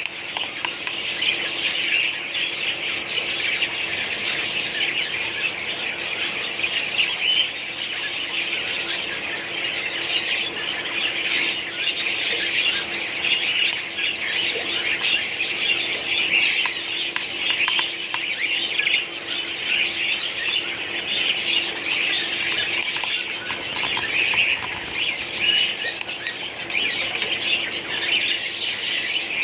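A colony of budgerigars chattering and chirping continuously, many birds calling at once in a dense, unbroken stream of short notes.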